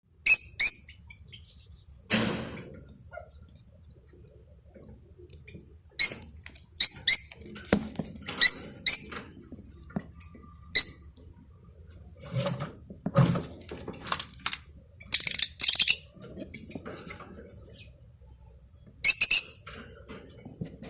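Small cage birds chirping: short, sharp, high calls at irregular intervals, some in quick pairs, with a few duller rustling sounds between them.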